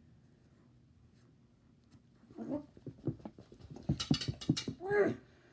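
A child's voice making silly noises and short bursts of laughter, starting about two seconds in and loudest near the end.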